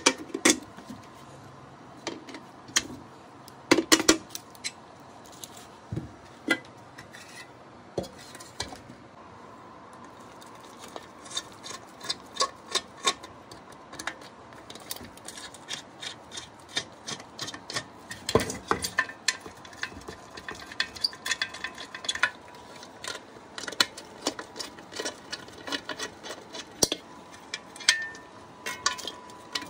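Hand tools working on a Weber Q grill's cast-aluminium lid: pliers and a screwdriver loosening the lid's hinge pin and bolts. Irregular metallic clicks, ticks and scrapes, with a few louder knocks.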